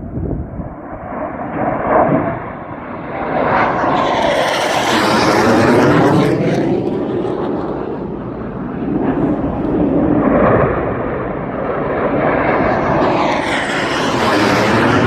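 F-15 fighter jets flying low past one after another: a loud jet roar swells to a peak about five seconds in, eases off, then swells again near the end as the next jet passes.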